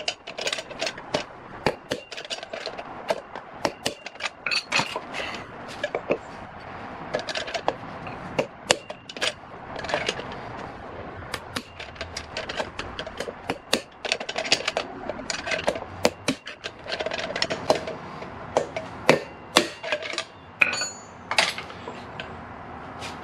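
Hammer blows on a pry bar set against the inner edge of a 2003 Honda VFR800's front wheel bearing, driving the bearing out of the hub. Between blows the spacer is shifted from side to side and rattles. The sharp strikes come quickly and irregularly, sometimes several to the second.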